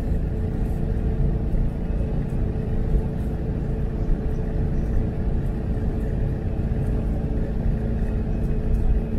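Steady engine and road rumble of a vintage Volkswagen Beetle driving along at an even speed.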